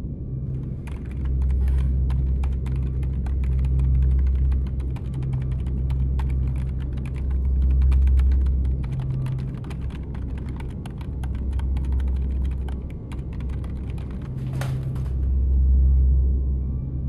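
Computer keyboard typing: quick, irregular key clicks that stop a little before the end. Under them runs a low rumbling drone that swells and fades every few seconds, and a short swish comes shortly before the typing stops.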